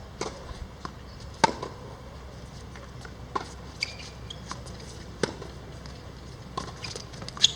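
Irregular light clicks and knocks, about a dozen of them, over a low steady background. Two louder knocks come about a second and a half in and near the end.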